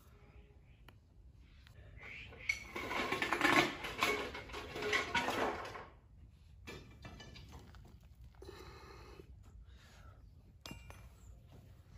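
Metal tools scraping and clinking against sand-packed steel casting-mould rings during frying-pan sand moulding, in a dense gritty burst of about three seconds. Scattered quieter scrapes and a sharp click follow.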